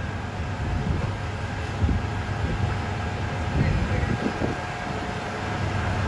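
City street noise: a steady low vehicle rumble with faint steady hum, broken by irregular low thumps of high wind buffeting the microphone.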